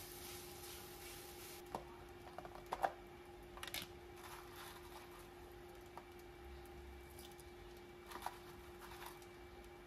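Fried rice sizzling faintly in a pan as it is stirred, the hiss stopping about a second and a half in. After that come a few light clicks and taps as chopped green onions are handled in a plastic container and dropped into the pan, over a steady faint hum.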